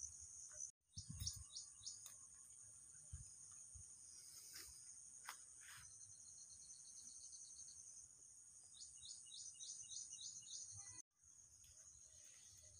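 Faint outdoor background of insects keeping up a steady high-pitched drone, with a bird twice giving a short run of quick, evenly spaced chirps. The sound drops out for a moment twice.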